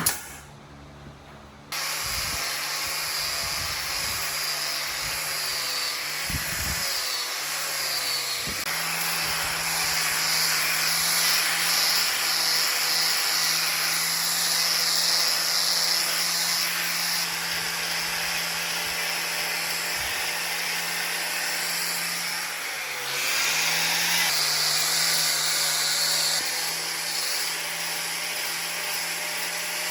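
An electric power tool starts about two seconds in and runs steadily. Its motor hum sags briefly in pitch twice, as if it is taking load on the wood.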